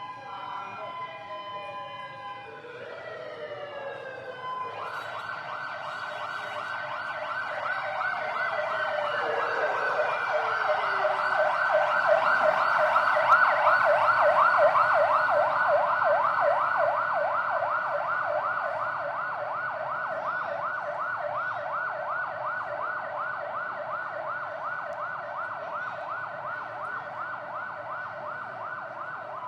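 Emergency vehicle siren. For the first few seconds several falling wail tones overlap; about five seconds in it switches to a fast yelp that grows louder toward the middle and then slowly fades.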